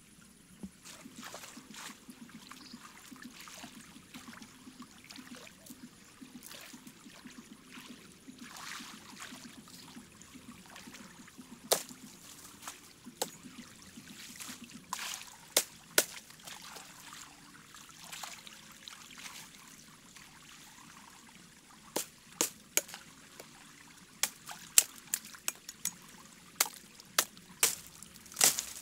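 Muddy floodwater trickling and sloshing as a person wades through it. Sharp clicks and snaps are scattered through, coming thicker near the end.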